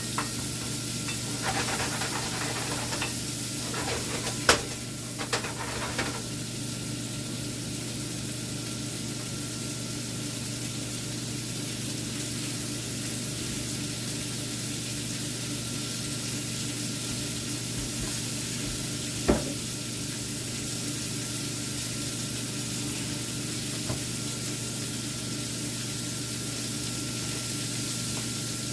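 Shrimp sizzling steadily as they fry. There is some stirring clatter in the first few seconds, and sharp single knocks of a utensil against the pan come about four seconds in and again near the middle.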